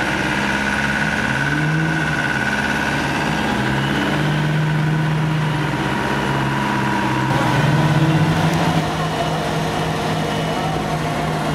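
Off-road vehicle engine running during a winch recovery, its revs rising and falling several times and louder for about a second around eight seconds in.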